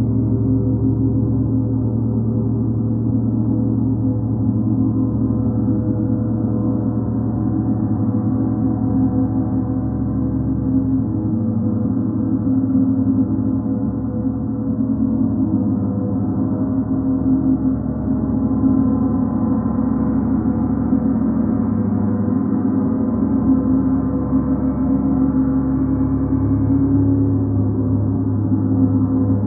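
Large hanging planetary gongs played with soft felt mallets, building a continuous gong-bath wash of many overlapping ringing tones. The sound holds at a steady level with gentle swells and no distinct single strikes standing out.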